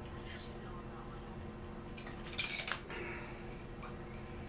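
A quick cluster of sharp metallic clinks about two and a half seconds in, as a hex key works against a small part taken off a two-stroke trimmer engine, over a faint steady hum.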